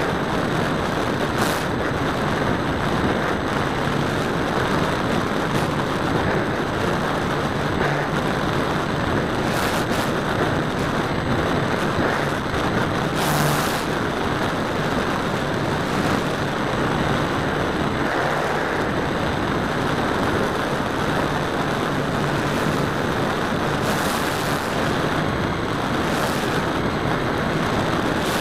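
Rush of air over a radio-controlled model airplane's onboard camera in flight, with the steady drone of its propeller and a faint low tone that wavers slightly. A few short hisses come and go.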